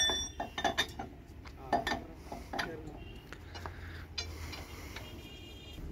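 Irregular metallic clinks and knocks of a long steel rod and wheel tools worked against a lorry's rear wheel hub during a tyre change, mostly in the first three seconds.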